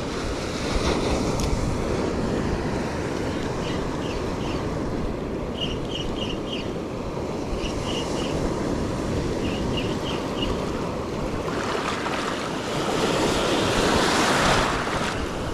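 Surf breaking and washing across a shallow rocky reef flat, with wind buffeting the microphone. A wave surges in louder near the end. In the middle come several small groups of three or four short high ticks.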